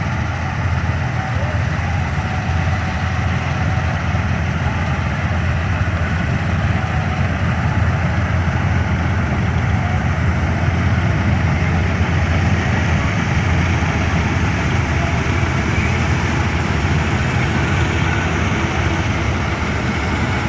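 Heavy farm diesel engine running steadily at a constant speed, strongest in its low rumble.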